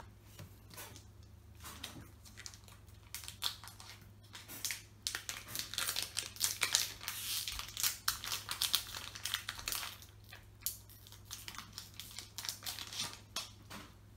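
Foil wrapper of a Naruto card game booster pack crinkling and tearing as it is pulled open by hand, in irregular crackles that are busiest through the middle.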